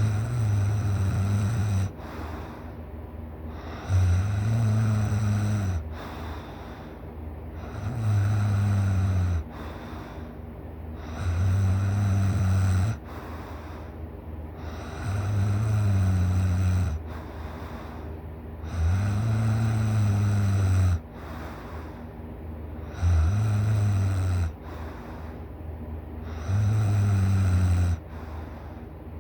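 A person snoring loudly in deep sleep: about eight deep, rumbling snores at an even pace, one every three and a half seconds or so, each lasting a second and a half to two seconds, with a quieter breath between.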